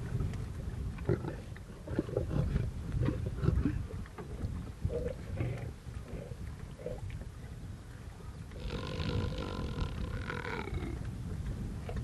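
Lionesses growling at one another at close range: low, broken grunting growls, then a longer, snarling growl from about nine to eleven seconds in.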